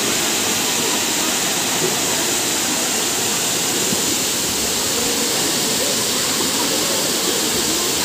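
Steady rushing of Kakochang waterfall, a large year-round cascade, falling into its plunge pool.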